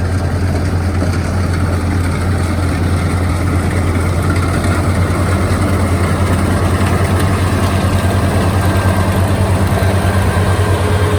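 Rice combine harvester's diesel engine running steadily while harvesting, a deep, even drone with a fast pulse.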